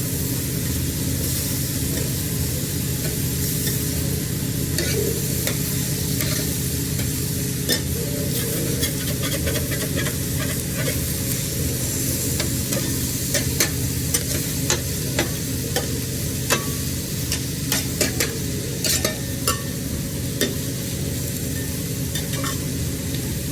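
Seafood sizzling on a hot grill, a steady hiss with many short, sharp clicks and taps, thickest in the second half.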